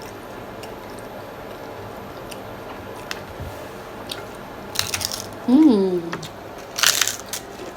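Close-up bites and chewing of crunchy taco shells, with faint crackles throughout and two loud crunches about five and seven seconds in. A short hummed "mmm" falls in pitch between the two crunches.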